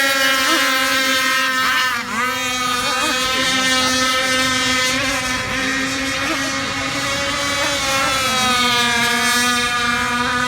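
Radio-controlled speedboat's motor running at a steady, even pitch, with a brief dip and recovery in pitch about two seconds in.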